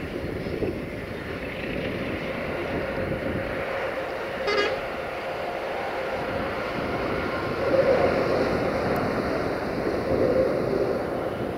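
Tank wagons of a heavy freight train rolling along the track: a steady rumble and clatter of steel wheels on rails, swelling louder twice near the end. A short toot sounds about four and a half seconds in.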